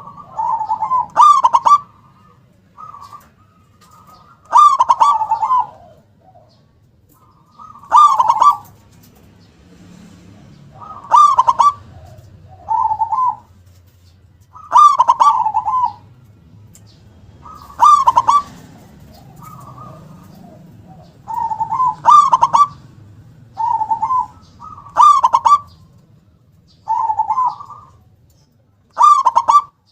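Zebra dove (perkutut) singing its loud cooing song over and over, a phrase about every three to four seconds, each one ending on a lower coo.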